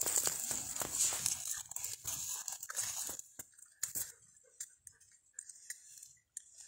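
Crunching and rustling in dry brush and dead leaves, loud and dense for the first three seconds, then dropping to a few faint scattered snaps and ticks.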